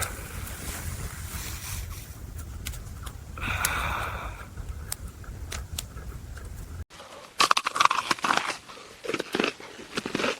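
A steady low wind rumble with a few faint scrapes and clicks. After a sudden cut near the end, a run of loud, irregular crunching sounds.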